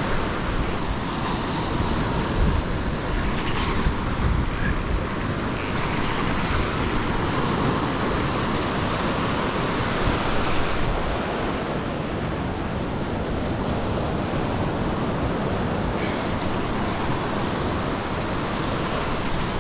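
Small waves breaking and washing up the beach, a steady rushing, with wind rumbling on the microphone.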